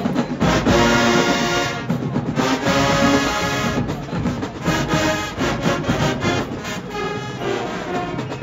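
Show-style marching band playing at full volume: massed brass, sousaphones included, holding loud chords over drum strokes that mark the beat.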